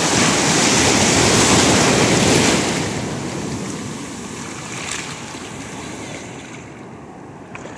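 Ocean surf: a wave breaks and washes in around the wader, loudest over the first three seconds, then subsiding to a quieter wash.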